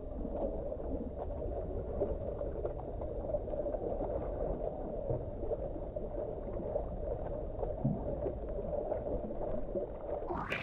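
Pool water sloshing and gurgling against a phone in a waterproof case held at the surface, heard slowed down and deep by slow-motion playback: a muffled, steady churn with occasional small splashes. Right at the end the sound turns bright and clear as normal-speed playback returns.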